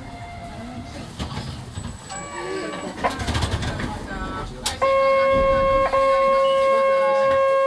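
Voices and general noise at a busy tram stop. About five seconds in, a loud, steady electric buzzer starts aboard the tram, breaks off for a moment and then holds on, the kind of warning given before the doors close and the tram departs.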